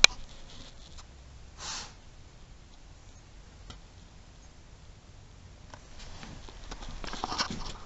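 Quiet room tone, broken by a sharp click at the very start, a short breath-like hiss a little under two seconds in, and faint rustling and clicks that build up near the end.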